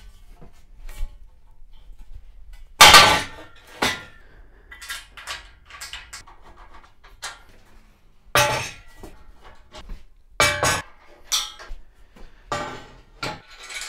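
Lengths of steel box section clanking and knocking against a steel frame as they are set in place, with metallic ringing after the hits. The loudest clank comes about three seconds in, another about eight seconds in, then several smaller knocks near the end.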